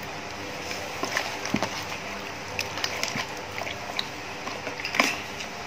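Wet squelching and smacking of bare hands kneading marinade into raw duck in a plastic tub, in irregular short squishes, the loudest near the end, over a steady hiss.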